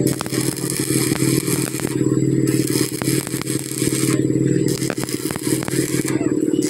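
Stick (arc) welding on a broken truck rear axle housing: the arc crackles and sizzles in runs of a second or two, breaking off briefly about three times, over a steady low hum.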